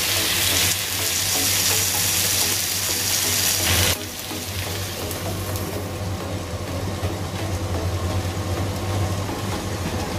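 Whole tilapia sizzling in its own oil in a double-sided grill pan: a steady hiss over a low hum. About four seconds in the sizzle drops and goes duller as the pan's lid is closed over the fish.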